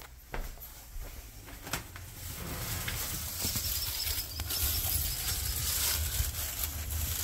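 A few sharp knocks, like footsteps or a door, as someone walks outdoors, then a steady outdoor hiss that grows louder over a low rumble.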